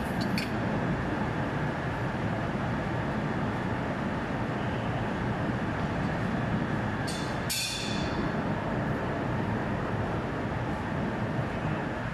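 Steady drone of running air-conditioning chiller plant machinery, with one short sharp knock a little past halfway.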